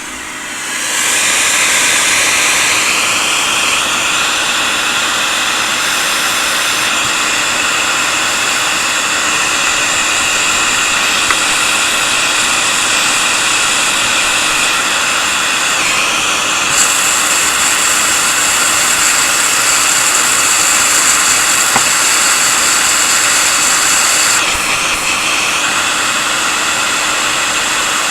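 A steady rushing of air from a motor-driven air tool. It starts up about a second in, and its hiss changes tone a few times.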